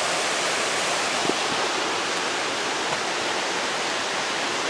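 Waterfall rushing steadily: a constant, even wash of falling water with no change in level.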